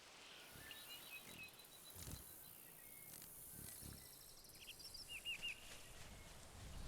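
Faint outdoor nature ambience with scattered small bird chirps, including a quick run of three chirps about five seconds in, and a couple of soft low thuds.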